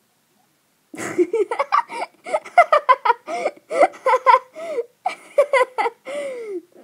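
A girl giggling hard in a long run of quick bursts, starting about a second in and trailing off on a falling note near the end.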